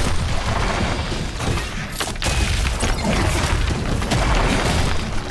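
Animated action sound effects: a heavy low rumble with booms and crashing impacts, two sharp hits close together about two seconds in.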